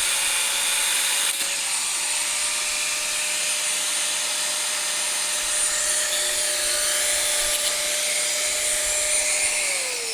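An electric power tool's motor runs at a steady speed, then is switched off near the end and winds down with a falling whine.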